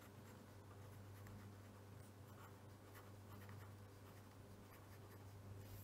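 Faint scratching of a pencil writing on paper, in short strokes, over a low steady hum.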